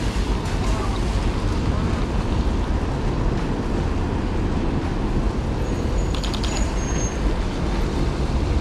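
Steady city traffic noise with a heavy low rumble. About six seconds in there is a quick run of clicks and a short high whistle.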